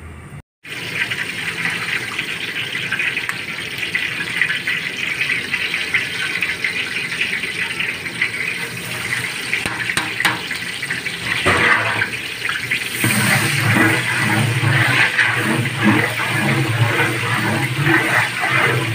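Sliced onions sizzling in hot oil in a large aluminium pot, a steady hiss. It grows louder and fuller from about two-thirds in, as a long ladle stirs the onions through the oil.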